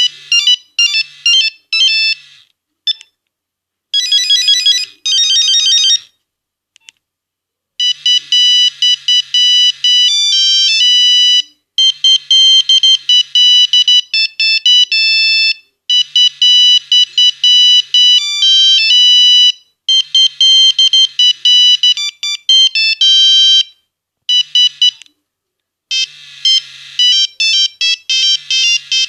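Nokia 1101 mobile phone playing its monophonic ringtones: one-note-at-a-time beeping melodies, loud and high-pitched. The tunes break off about three, six and twenty-four seconds in and start again after short silences.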